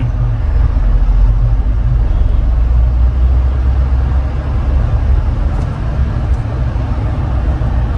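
Engine and road noise of a modified Mahindra SUV driving slowly through town, heard inside the cabin as a steady low rumble. The rumble swells a little about a second in and eases again later.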